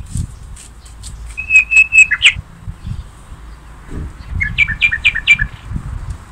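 A songbird chirping in short runs of clear whistled notes: about four notes around a second and a half in, then a quicker run of five two-part notes about four and a half seconds in. A low rumble with scattered knocks runs underneath.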